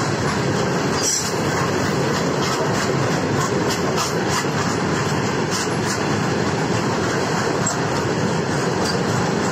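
Open-top freight wagons rolling past close by as the train picks up speed: a steady rumble of steel wheels on rail, with scattered short clicks and rattles from the wagons.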